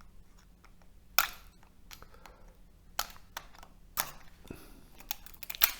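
Thin steel transformer laminations clicking and clinking as a knife pries and scrapes them apart. It comes as scattered sharp clicks, the loudest a little over a second in, with others around three, four and nearly six seconds in.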